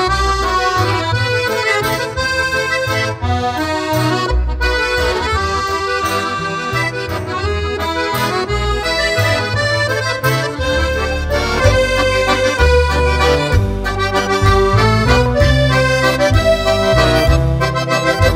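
Instrumental background music with a bass line under a melody.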